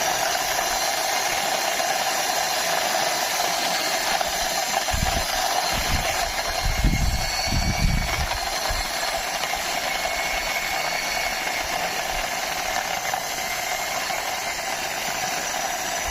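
Small plastic toy car pushed along a surface by hand, its wheels and axles giving a steady whirring rattle, with a few low knocks about five to nine seconds in.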